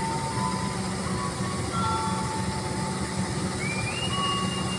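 KAI CC 206 diesel-electric locomotive hauling a passenger train away from a standstill: a steady low engine and wheel rumble, with thin high tones that step up in pitch about three and a half seconds in and hold.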